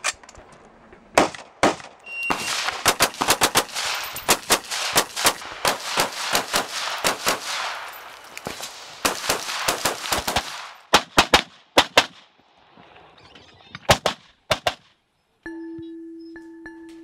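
Rapid fire from a semi-automatic rifle: many shots in quick strings, several a second, breaking off about two-thirds through before a few more shots. A held mallet-percussion note of background music starts near the end.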